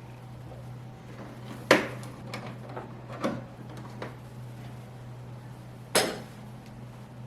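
A few separate sharp knocks and clacks, the loudest about two seconds in and another about six seconds in, over a steady low hum.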